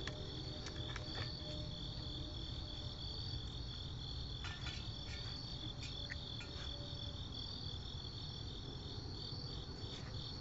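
Night crickets chirping steadily in two high trills, one pulsing evenly and one held steady. A few faint clicks near the start and around four to five seconds in.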